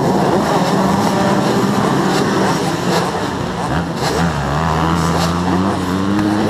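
Many dirt bike engines running and revving together on a crowded start line, the nearest engine holding a steady note and then rising in pitch near the end; the noise comes in abruptly.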